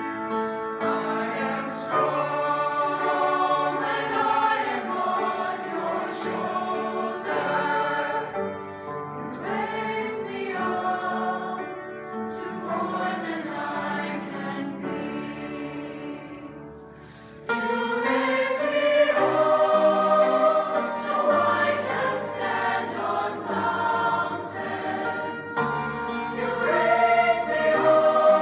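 A choir singing as background music. It fades about two-thirds of the way through, then comes back in louder.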